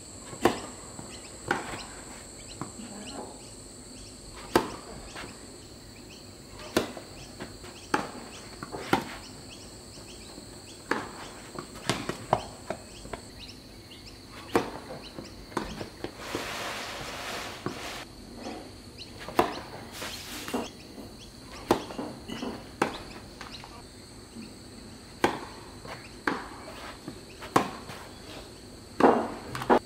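Tennis racket strikes on the ball during serves and rallies: sharp single hits every second or two, the loudest pair near the end. A steady high insect buzz runs underneath.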